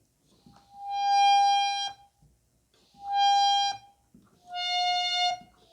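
Harmonium reed in the upper octave sounding three short held notes, the last a little lower in pitch. Each starts with a faint rush of air and swells in rather than speaking at once, the sign of a reed slow to respond; its opening has just been pressed narrower and a slight delay remains.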